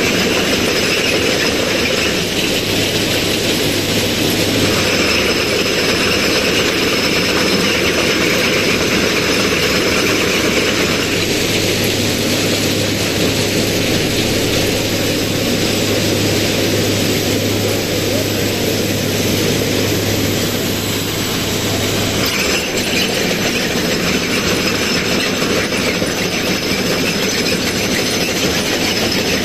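Railway ballast cleaning machine working over the track: a steady, loud mechanical din from its engine and excavating gear in the ballast. A low engine hum underneath drops away about three-quarters of the way through.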